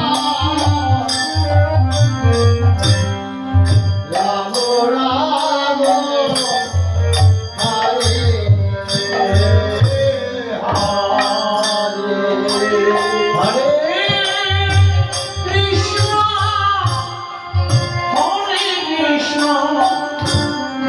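A song playing: a singing voice over a rhythmic beat with heavy bass.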